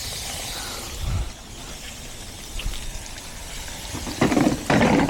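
Water hissing from a leaking garden hose fitting. The hiss drops about a second in with a low thump, and a few louder handling noises come near the end.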